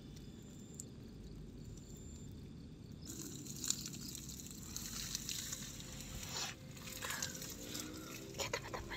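Faint rustling and light clicks as gear is handled in a tent, over a low steady background hiss. Near the end a distant motorcycle engine rises and falls.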